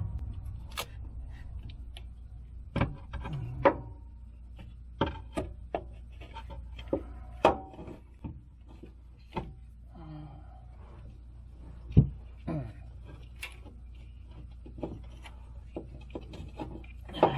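Irregular metal clinks and knocks of tools and parts as a car's starter motor is worked up into place, a few of them ringing briefly, over a low steady hum; the sharpest knock comes about twelve seconds in.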